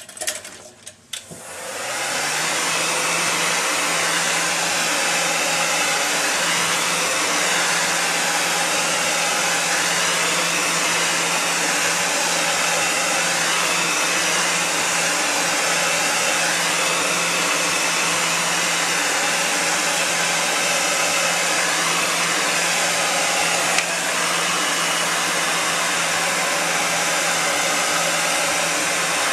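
Heat gun starting up about two seconds in after a few handling knocks, then blowing hot air steadily onto a foot orthotic to soften it for molding: an even rush of air over a low steady motor hum.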